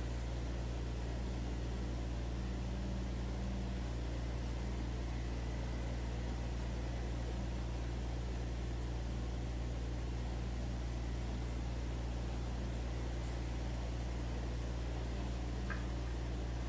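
Electric stand fan running: a steady low hum with a faint hiss.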